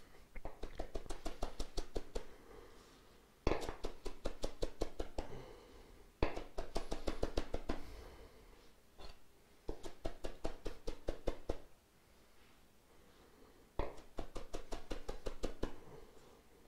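Chef's knife rapidly chopping spinach leaves on a cutting board, in five runs of quick, even strokes with short pauses between them.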